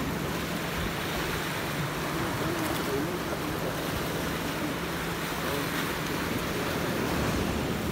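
Steady rush of sea waves, with wind on the microphone.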